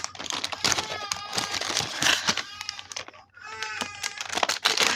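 Plastic packaging crackling and crinkling as it is handled and opened, a dense run of small sharp crackles.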